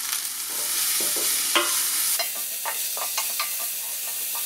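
Chopped red onion, garlic and ginger sizzling in oil in a stainless steel pan, stirred with a wooden spatula that scrapes and knocks against the pan several times over a steady hiss.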